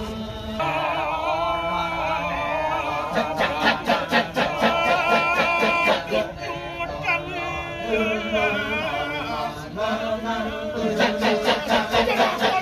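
A male chorus chanting without instruments in the kecak style of Balinese Ramayana performance. Wavering sung lines at first, then from about three seconds in a fast, clipped rhythmic chant under a lead voice, which eases briefly in the middle and picks up again near the end.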